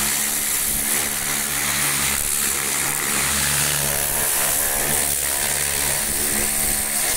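Pressure washer running steadily: the motor and pump hum under the hiss of the high-pressure water jet striking a tractor's engine.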